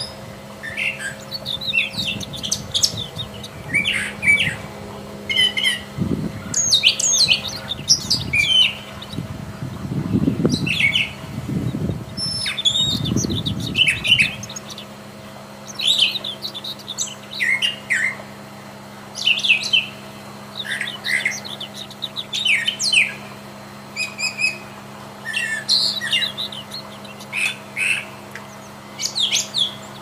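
Brown thrasher singing: a long run of short, varied phrases of whistled and harsh notes, each phrase followed by a brief pause. A low rumble runs underneath from about six to fourteen seconds in.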